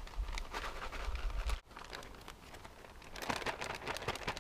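Plastic cooking bag of a freeze-dried trail meal, just filled with water and sealed, crinkling and crackling in quick bursts as it is handled, over a low rumble that stops about a second and a half in.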